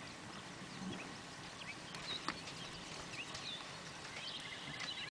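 Outdoor ambience of small birds chirping in scattered short calls over a steady background hiss, with a horse's hooves faintly on soft arena dirt. A single sharp click comes a little over two seconds in.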